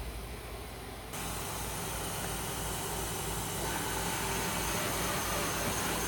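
CNC vertical machining center running with a steady hiss that jumps sharply louder about a second in and then holds.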